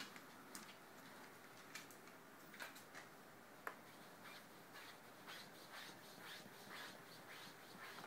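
An Ocicat's claws scratching and scuffing at a cotton bed sheet as it digs: faint, short scrapes and clicks in an irregular series, coming faster in the second half.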